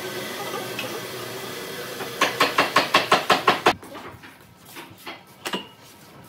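A quick, even run of about a dozen sharp knocks, roughly seven a second, over a steady hum, stopping abruptly; then a few scattered, lighter knocks.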